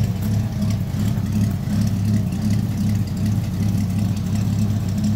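Old Ford pickup's engine idling steadily just after a cold start, warming up, heard close to the rusty tailpipe. The owner says it has a little cam.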